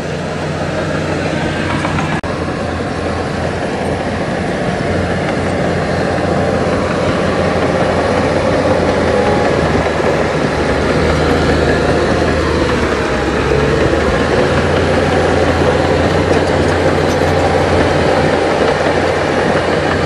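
Diesel engine of heavy earthmoving machinery running steadily under load, with dense mechanical noise over a low engine hum; it grows a little louder after the first few seconds.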